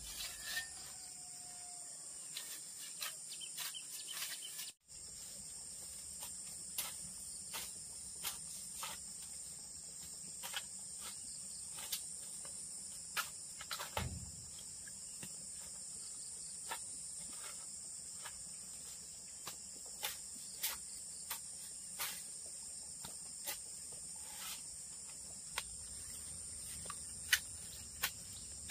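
Steady high-pitched chorus of crickets and other insects, with scattered sharp clicks and knocks throughout and a duller thump about fourteen seconds in.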